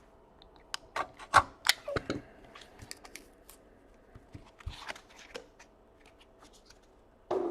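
Hands handling trading cards and their packaging: scattered clicks, taps and rustles of card and wrapper, the sharpest ones in the first two seconds and a soft rustle about five seconds in.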